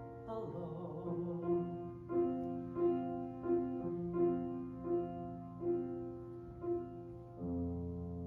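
Piano playing the closing bars of a song: a steady run of repeated notes over held chords that slows slightly, then a final low chord near the end that rings on.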